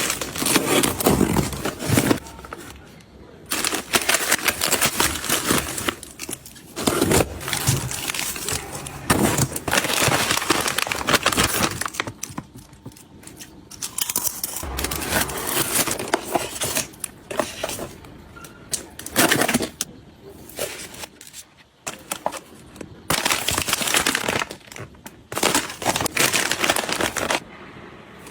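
Close-up handling sounds: irregular clicks, taps and knocks of small items being picked up and set down, mixed with crinkling plastic packaging, in short busy bursts with brief pauses.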